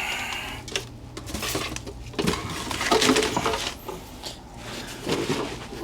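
Garden pots and dead plant matter being handled: irregular clattering, clinking and crunching.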